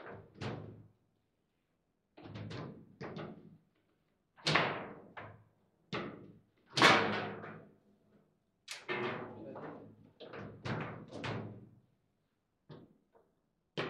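Table football being played: the ball is struck by the players' figures and bangs against the table, with rods clacking, giving a string of sharp knocks in small clusters about once a second. The hardest hits come about a third and half way through.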